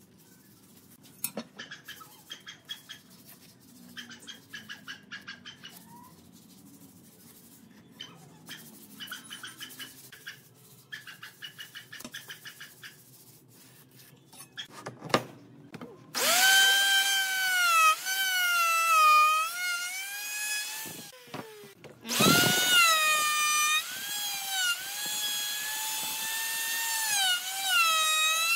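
Handheld electric power tool working wood: its motor whines loudly, the pitch sagging and recovering as the load changes. It stops briefly and starts again a second later. Before it starts, there are quieter bursts of light rapid clicking.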